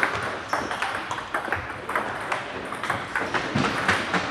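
Table tennis rally: the celluloid-type ball clicking sharply off the bats and the table, several times a second at irregular spacing.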